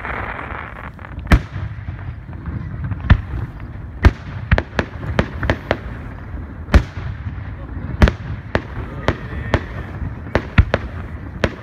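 Aerial firework shells bursting: more than a dozen sharp bangs at uneven spacing, with crackle and rumble between them.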